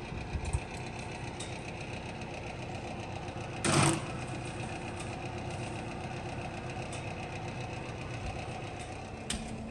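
Steady hum of a preheated wall oven's fan through the open door. About four seconds in, a metal sheet pan scrapes briefly onto the oven's wire rack, and a short click comes near the end.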